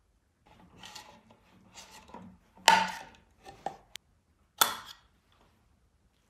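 A small metal tin of wood stain being handled and its press-fit lid worked off: scraping and rattling of tin, with two sharp metallic clacks, the louder about two and a half seconds in and another near the end.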